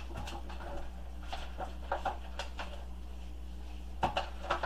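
Gloved hands rubbing oiled, seasoned potatoes in a disposable aluminium foil pan: scattered short rubbing and squeaking sounds, with a cluster near the end, over a steady low hum.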